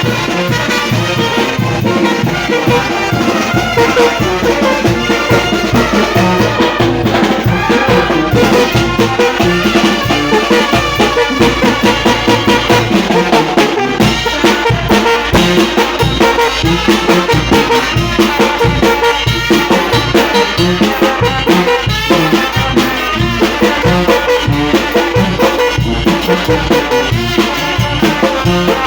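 A brass band playing a lively tune over a steady, regular beat.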